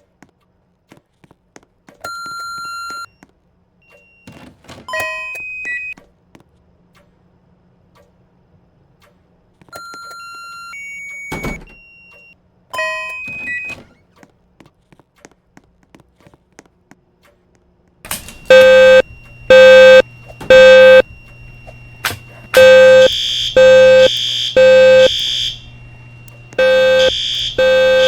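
A few short electronic beeps and chirps. About two-thirds of the way in, the fire alarm speaker strobes begin sounding a loud, low-pitched temporal-three evacuation tone: three tones a second apart, a pause, then three more.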